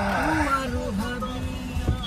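Music: a single melody line that glides up and down in pitch, over a low steady rumble.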